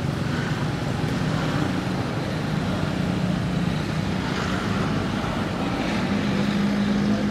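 A motor engine running steadily, its pitch stepping up a little about six seconds in.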